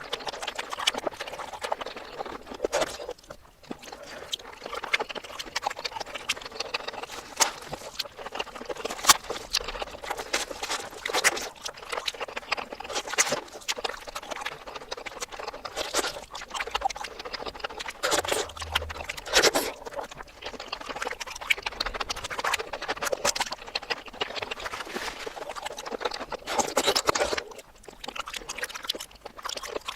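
Close-miked mukbang eating sounds played in reverse: wet chewing and mouth smacking in a dense, irregular stream of clicks and crackles.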